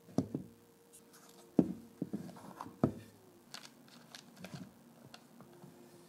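Hard plastic battery box handled and knocked against a wooden block: several sharp knocks in the first three seconds, then lighter clicks and taps.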